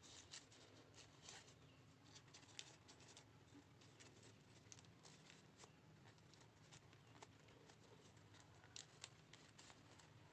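Faint crinkling and small clicks of origami paper being folded, creased and tucked by hand, with a few sharper crackles here and there.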